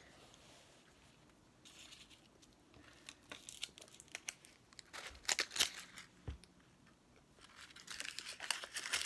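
Plastic lollipop wrapper being torn open and crinkled, in scattered rustles and small clicks, thickest about five seconds in and again near the end.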